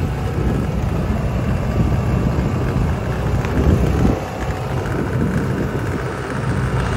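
A steady, loud low engine rumble from a vehicle being ridden in, with wind noise on the microphone. It swells briefly about four seconds in, then eases.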